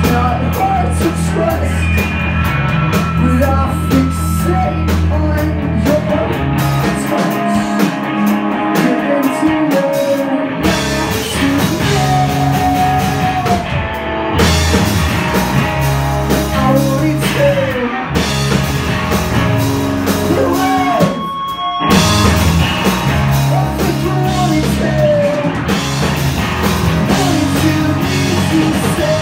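A rock band playing live and loud, with electric guitars, bass and a drum kit. The low end drops away for a few seconds about a third of the way in, and the band briefly breaks about two-thirds of the way through before coming back in.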